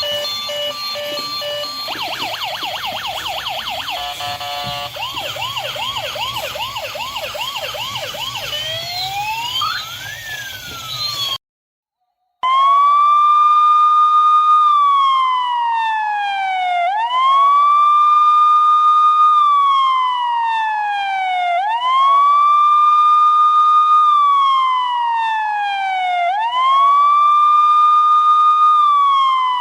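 Electronic emergency-vehicle siren switching through its tones. It goes from a hi-lo two-tone to a fast yelp, then a slower yelp and a rising sweep that cuts off. After about a second of silence it settles into a slow wail that rises, holds and falls about every five seconds.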